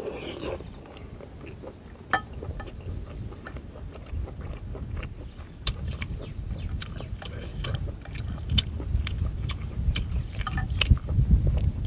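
A person eating noodle soup with close-up chewing and slurping and many short, sharp clicks. Wind rumbles on the microphone, growing stronger in the second half.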